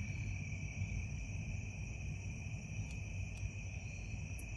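Crickets and other insects chirring steadily at two high pitches, over a low steady rumble.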